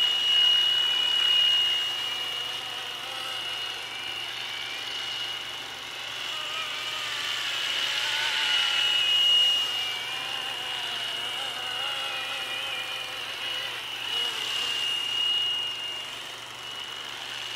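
Electric RC helicopter flying, its motors and rotors giving a steady high whine over a wavering rotor hum. The sound grows louder as it comes close, about eight to nine seconds in.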